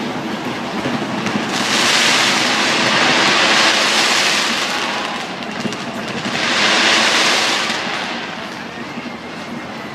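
Fireworks display going off. Two long swells of dense hissing noise rise over a steady background din, the first about two seconds in and lasting some three seconds, the second starting about six seconds in and lasting about two seconds.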